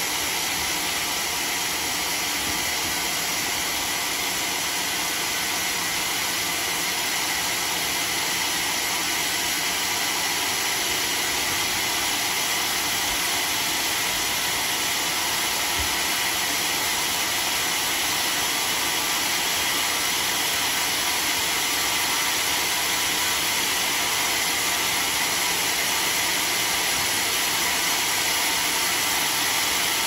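Sawmill machinery running steadily, a constant even whir that holds at one level.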